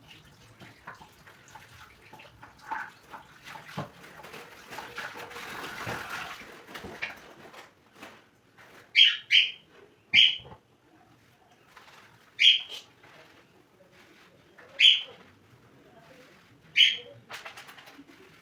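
A bird giving short, loud, high calls, six in all over the second half, spaced about one to two seconds apart, over faint scattered background noise.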